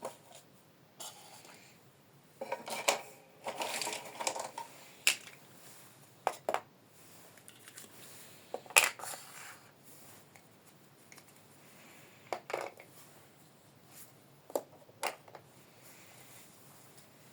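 Small plastic toy kitchen pieces being handled, giving irregular clicks and clacks. There is a stretch of scraping and rustling a few seconds in, and the sharpest click comes about halfway through.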